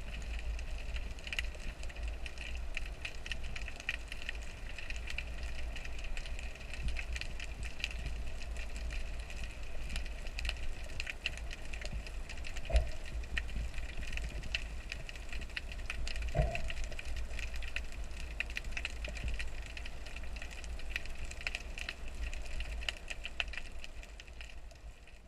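Underwater sound picked up through a camera housing: a constant fine crackling of clicks over a low rumble, with two short louder knocks about 13 and 16 seconds in.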